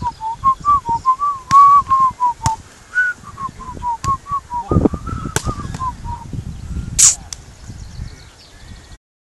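A volleyball being struck several times in a sand-court rally, sharp hits that are the loudest sounds. Behind them runs a quick series of short whistled notes, about three a second, which stops after about six seconds.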